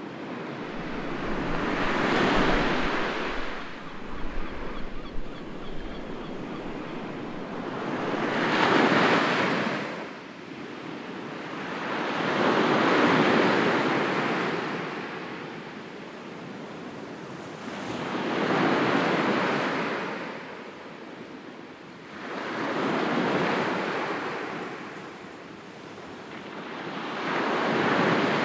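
Sea waves washing onto the shore, each one swelling and fading in turn, about six in the stretch, one every four to six seconds.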